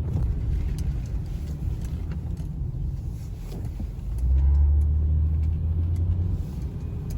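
Car driving on a wet, slushy road, heard from inside the cabin: a steady low rumble of engine and tyres that swells louder for about two seconds around the middle.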